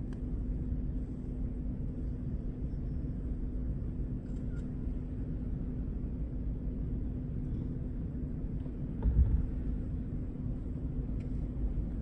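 Vehicle engine running steadily: a low rumble with a constant hum, and a single short thump about nine seconds in.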